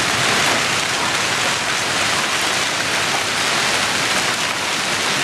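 Heavy rain mixed with hail pouring down onto hard surfaces: a steady, dense hiss.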